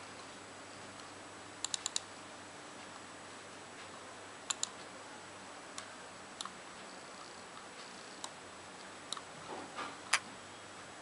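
Computer mouse clicking: a quick run of four clicks near the start, a close pair about four and a half seconds in, then single clicks, the loudest near the end, over a steady faint hiss.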